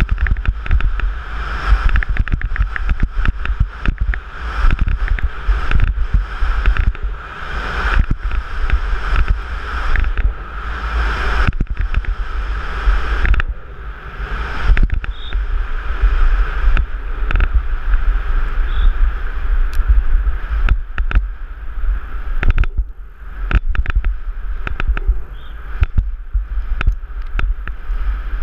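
Downhill mountain bike ridden fast over a dry dirt trail, heard from a helmet-mounted camera. Wind buffets the microphone and tyres roll on dirt, with a constant rattle of sharp clicks and knocks from the bike and chain over the bumps.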